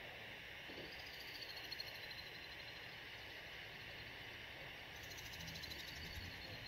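Faint animal chorus: high-pitched pulsing chirps over a steady hiss, starting about a second in and again about five seconds in.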